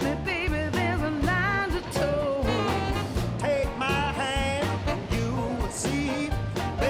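Background music: an upbeat song with a sung vocal, bass and drums.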